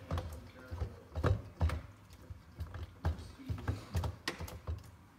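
A spoon stirring a thick cream cheese, sour cream and salsa mixture in a stainless steel mixing bowl, with irregular knocks and scrapes against the metal; a couple of louder knocks come about a second and a half in.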